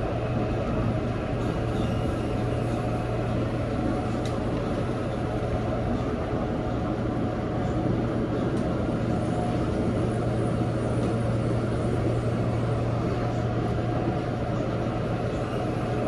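Busan Subway Line 1 train running steadily on an above-ground stretch, heard from inside the car: an even rumble of wheels on rail with a constant low hum underneath.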